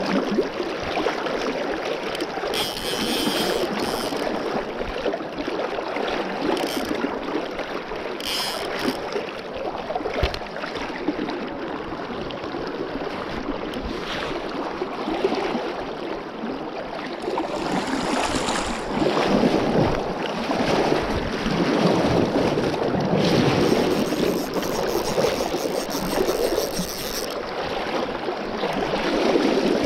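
River current rushing and lapping close to the microphone as a steady wash of water noise, swelling louder in the second half.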